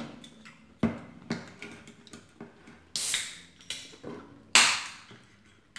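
A drink can being opened: a few sharp clicks of the pull tab and two short fizzing hisses about three and four and a half seconds in, the second the louder.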